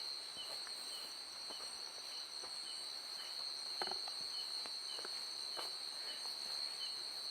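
Night insect chorus: crickets trilling steadily at several high pitches, with a softer chirp repeating about twice a second. A few faint taps sound now and then, the clearest about four seconds in.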